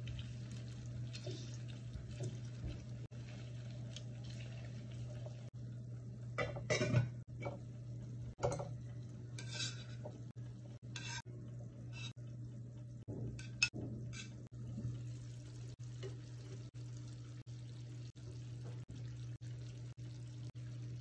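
Kitchen utensils clinking and knocking against a metal cooking pot as cooked apple pieces are lifted out with tongs: scattered short clanks, the loudest about seven seconds in. A steady low hum runs underneath.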